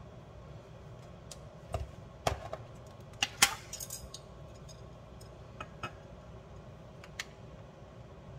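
Clatter and sharp clicks of a plastic food container set down on a granite countertop and its snap-on plastic lid pulled off, over a low steady hum. The knocks bunch up in the first few seconds, the loudest two about a second apart, then a few lighter clicks follow.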